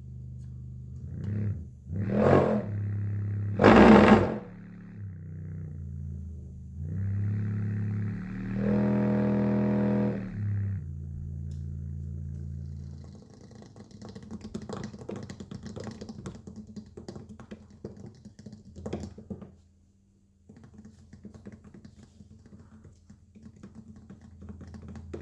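Unmounted Logitech Z533 subwoofer driver in free air playing a very low sine test tone: a deep hum with buzzing distortion as the volume is turned up and down, and two loud bursts about two and four seconds in. In the second half a fast crackling rattle joins it, from a small feathered object bouncing on the moving cone.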